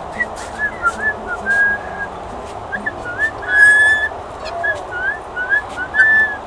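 Blue jay calling: a run of short, clear whistled notes, some rising and some falling, with a longer held whistle about halfway through and a few sharp clicks in between.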